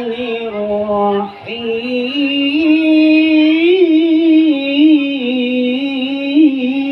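A Qur'an reciter's voice singing a long, high melismatic line in qiro'ah (tilawah) style. Held notes waver and turn in ornaments, with a short break for breath just over a second in.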